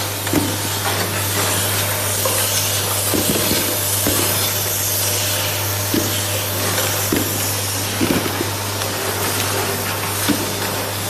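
Automatic syringe assembly machine running: a steady hum and hiss with irregular clicks and knocks from its mechanism.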